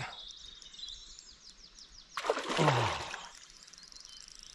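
A hooked carp thrashing and splashing at the surface of the lake, a single short rush of water about two seconds in, with small birds twittering behind.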